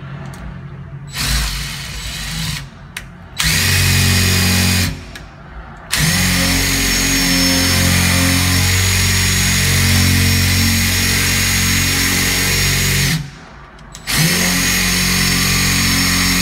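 Power drill spinning a screw-extractor bit in a stripped screw, running in several bursts: a short one about a second in, a longer one about three seconds in, a long steady run from about six seconds, and again after a brief stop near the end. The extractor is not biting, so the screw is not coming out.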